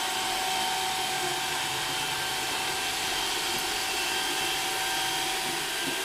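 iRobot Roomba Dirt Dog robot sweeper running across bare wooden floorboards: a steady whir from its motors and its counter-rotating brushes and side sweeper arm.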